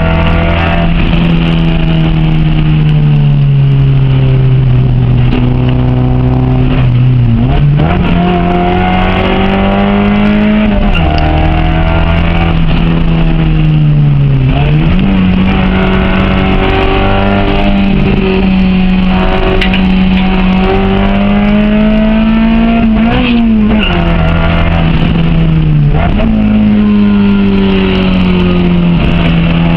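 Honda H22A four-cylinder engine in a Civic driven hard, its speed swinging up and down steadily for long stretches. The pitch jumps sharply several times, about 7, 10, 14, 23 and 26 seconds in.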